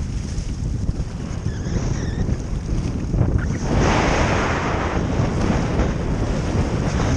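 Strong gusty wind buffeting the microphone, with small waves splashing against the lake bank; it grows louder about four seconds in.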